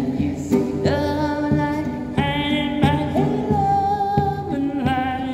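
A man singing with long held notes while strumming a nylon-string classical guitar.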